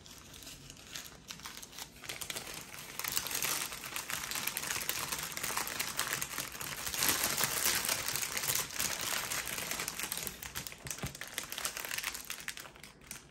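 Plastic bags crinkling as hands rummage through a clear bag full of small zip-lock baggies of diamond painting drills, louder from about three seconds in.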